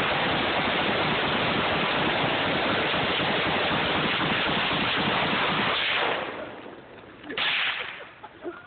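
Several guns (a .22 semi-auto, a bump-fired AR-15 and a Krinkov) firing at once, the shots so rapid and overlapping that they blur into one steady, loud noise. The firing stops about six seconds in, with one more short burst about a second later.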